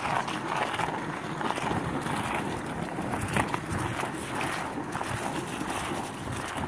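Skateboard wheels rolling over an asphalt path: a steady rumble with frequent small clicks and knocks.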